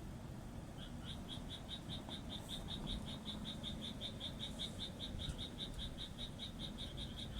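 A frog calling in a fast, even series of short notes, about five or six a second, that starts about a second in and keeps going.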